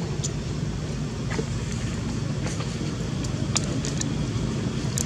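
Steady low engine rumble with a few faint, short clicks scattered through it.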